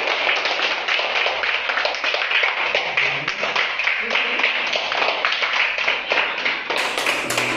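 A small group of people clapping their hands in a quick, dense patter, with voices mixed in. Near the end, music with a plucked-string tune comes in under the clapping.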